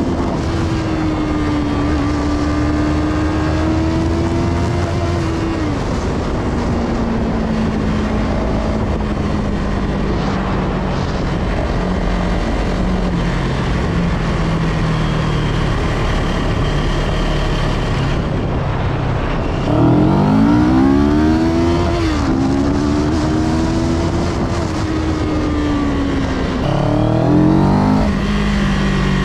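CF Moto 700 CL-X Heritage's parallel-twin engine heard from the rider's seat while cruising. Its pitch falls as the throttle closes early on and holds lower, then climbs in quick rising sweeps through the gears about twenty seconds in and again near the end, over a steady rush of road noise.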